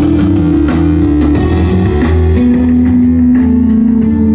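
A live band playing guitar-led rock music, with bass guitar and drums keeping a steady beat.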